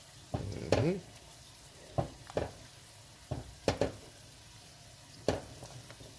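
Wooden spoon stirring thick cornmeal porridge in a pot: short wet strokes and scrapes against the pan, irregular, about one every second.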